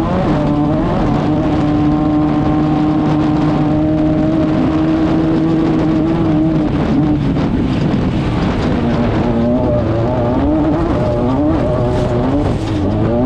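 Class 5/1600 off-road race car's 1600 cc air-cooled Volkswagen engine running hard at steady, high revs for about seven seconds. In the last few seconds its pitch rises and drops back again and again, about once a second.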